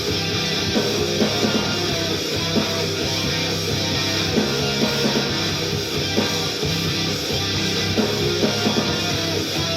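Loud rock music with distorted electric guitar and a steady drum beat.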